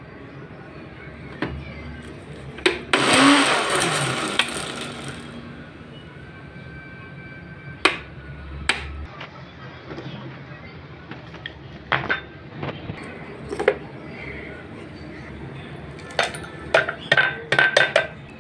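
Electric mixer-grinder dry-grinding roasted chickpeas: a short loud run of about two seconds, starting about three seconds in, then winding down. Around it come sharp clicks and knocks as the plastic jar is locked onto the base and handled.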